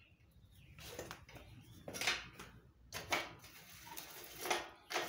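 Metallic clanks and rattles, about five short ones, as a bicycle's centre kickstand is folded up and the crank is turned past it to check that the crank arm clears the stand.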